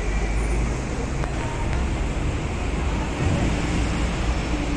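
Steady road traffic noise of a busy city street, a continuous low rumble.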